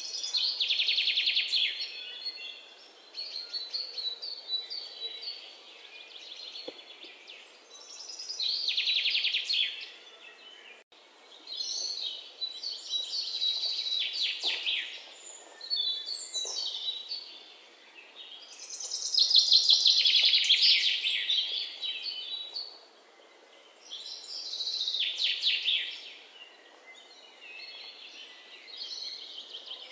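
Birds singing: rapid high trilling phrases of two to three seconds, repeated every few seconds.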